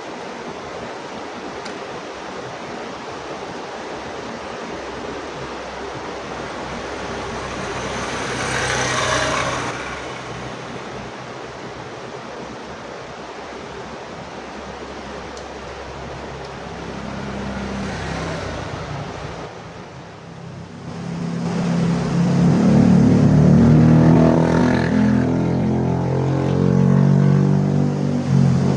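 A motor vehicle's engine running over a steady background hiss. It grows louder about two-thirds of the way in, and its pitch shifts up and down in steps.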